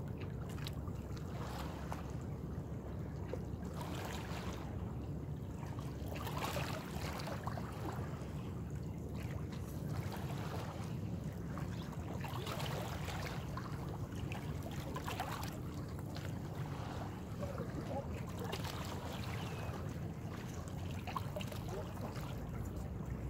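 Small waves lapping and splashing against shoreline rocks, a soft wash every two to three seconds, over a steady low rumble of wind on the microphone.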